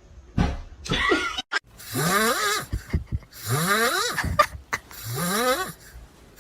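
An animal calling three times in a row. Each call is about a second long, rough and wavering, and rises in pitch.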